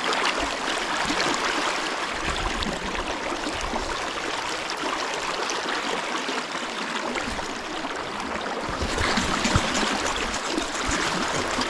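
Swift river current rushing and gurgling close to the microphone, a steady wash of flowing water.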